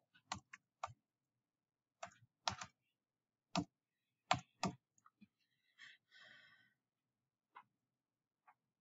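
Computer keyboard keystrokes: about nine sharp, irregularly spaced key clicks as the end of a sentence is typed, then a brief faint rustle about six seconds in and a few fainter clicks near the end.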